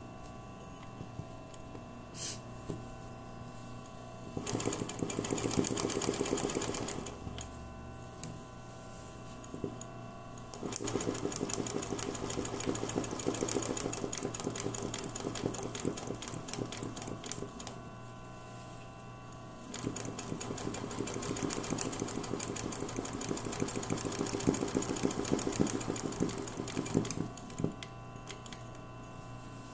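Sewing machine doing free-motion embroidery on hooped cloth, running its needle in rapid, even strokes. It stitches in three runs with pauses between: a short one a few seconds in, then two longer runs of several seconds each.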